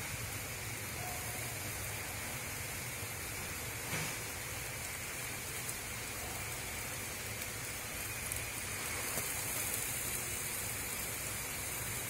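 Takoyaki batter sizzling steadily in the wells of a hot takoyaki pan.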